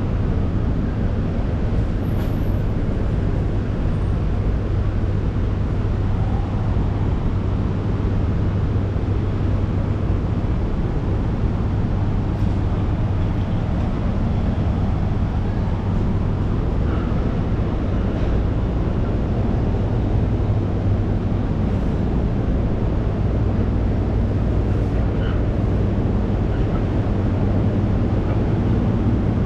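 Steady city street noise: a constant low hum like idling traffic under an even wash of street sound, with a few faint brief sounds over it.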